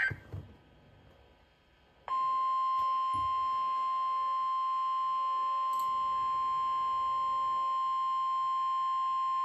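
Weather radio alert tone: a single steady high beep near 1 kHz that starts after about two seconds of near silence and holds at an even level, marking the start of a new warning broadcast.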